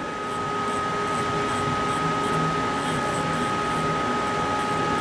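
Haas vertical machining center running, a steady mechanical hum with a constant high whine, and a low hum that comes and goes several times as the table is jogged along the X axis with the handwheel.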